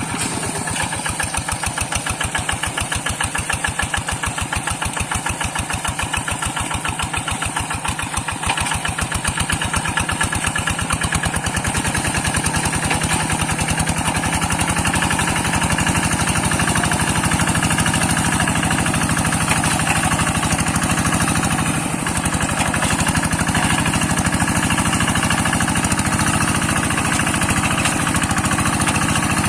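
Single-cylinder diesel engine of a two-wheel hand tractor running with a fast, steady thump as it works through a flooded rice paddy. A little over ten seconds in it grows louder and heavier and holds there, as if under more load.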